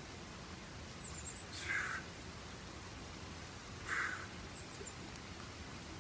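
Steady hiss of light rain, broken twice by a short noisy burst, part of a regular series about two seconds apart.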